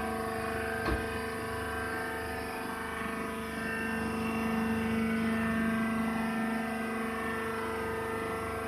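Rice husk baling machine running with a steady machine hum, a little louder in the middle, and a single short knock about a second in.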